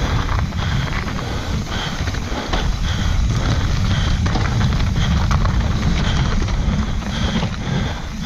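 Wind buffeting the microphone over the rumble of tyres on a dirt trail, with the Yeti SB140LR mountain bike knocking and rattling over rough ground. A short high squeak comes about once a second.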